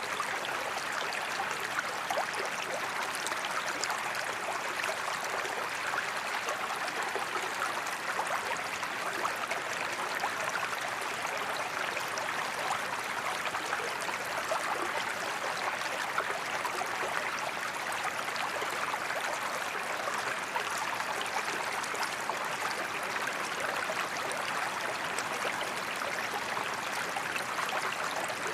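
A small forest creek running over stones, a steady babbling and trickling with many small splashes and gurgles.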